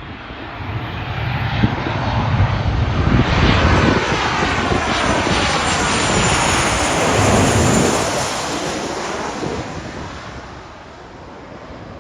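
An airplane flying past, its engine noise building over the first few seconds, loudest in the middle with a sweeping rise and fall in pitch, then fading away near the end.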